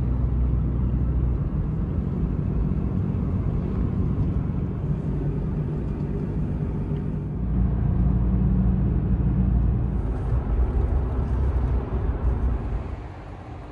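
Toyota Tacoma pickup truck driving at highway speed, heard from inside the cab: a steady low engine and road-noise rumble that swells a little about halfway through.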